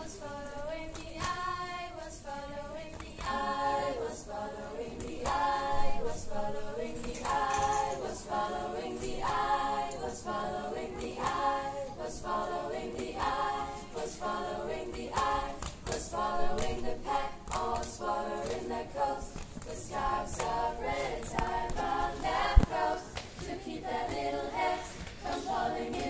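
Young female choir singing a cappella, accompanied by their own body percussion: sharp hand slaps and claps keeping a rhythm under the voices, with one especially sharp hit near the end.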